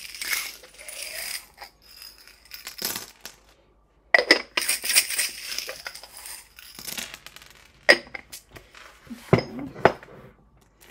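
Small metal charms shaken in the hands and cast onto a table of cards, rattling at first, then clinking and scattering in a burst about four seconds in, with a few single clicks near the end as they settle or are moved.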